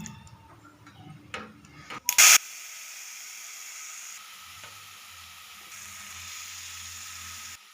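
Hot oil tempering with mustard seeds and curry leaves in a kadai. A short, loud burst comes about two seconds in, then a steady sizzling that cuts off near the end.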